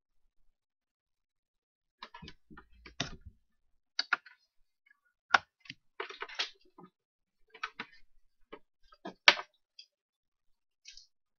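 Irregular small clicks and taps of hands working on a breadboard circuit: handling jumper wires, parts and needle-nose pliers. They start about two seconds in.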